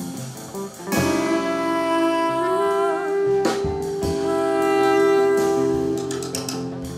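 Live jazz band playing, with a long note held for several seconds over the band and sharp percussive hits at the start of the phrases.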